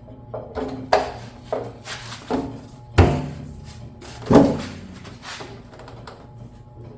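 Clunks and knocks of a steel tractor gas tank being handled and strapped down, about a dozen irregular hits. The two loudest, about three seconds and four and a half seconds in, ring briefly and hollowly. A steady low hum runs underneath.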